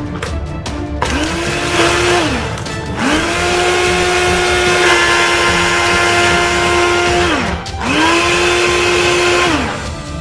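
Electric blender run in three pulses, grinding dried anchovies into powder. Each pulse spins up, holds a steady whine and winds down, the middle one the longest.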